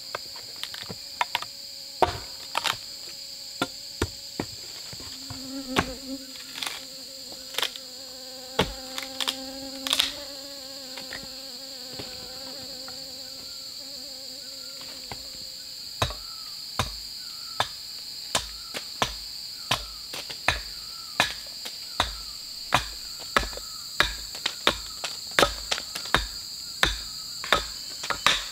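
Sharp strikes of a tool on wood, scattered at first, then settling about halfway into a steady rhythm of roughly one and a half to two a second. Under them insects drone steadily at a high pitch, and a fly buzzes for several seconds in the first half.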